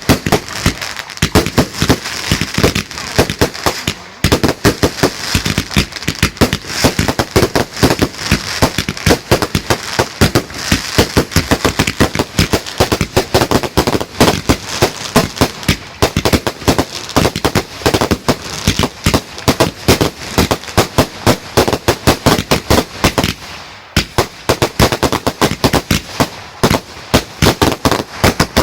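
Fireworks going off in a dense, rapid barrage of loud bangs and crackle, several reports a second, with brief dips about four seconds in and near the end.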